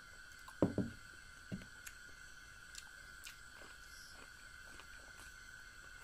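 A mug set down on a wooden table: two close knocks a little over half a second in, then a softer knock about a second later. Faint small mouth clicks from chewing boiled corn follow.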